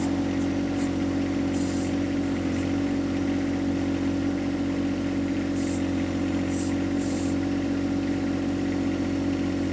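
John Deere 1025R compact tractor's three-cylinder diesel engine running steadily while powering the 260B backhoe, with several short high hisses at irregular moments.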